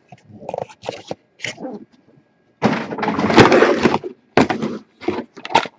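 Trading-card packaging being handled and opened: irregular crinkles, scrapes and rustles, with one longer stretch of rustling about three seconds in.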